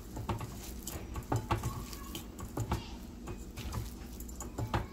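A bare hand mashing and mixing oiled, boiled cabbage on a ceramic plate: soft wet squishing with irregular light clicks of fingers against the plate.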